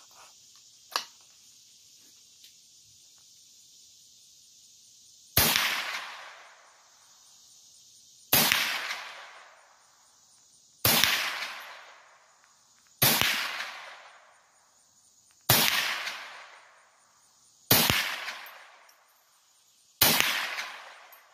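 .22 caliber rifle firing seven single shots, roughly two to two and a half seconds apart, each report trailing off in an echo over a second or so.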